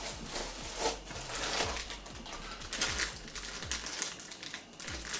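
Small parts and their plastic packaging being handled on a table: crinkling plastic bags with many light clicks and taps of small hard pieces.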